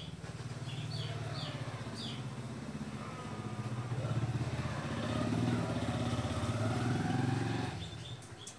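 An engine running close by, growing louder around the middle and dying away near the end. A few bird chirps come in the first couple of seconds.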